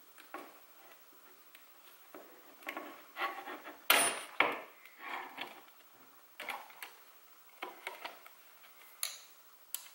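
Small hand tools clicking, tapping and scraping on a plastic part: an Allen key turning M3 bolts while pliers grip the nuts from behind. The handling comes in irregular bursts, with the loudest sharp clack about four seconds in.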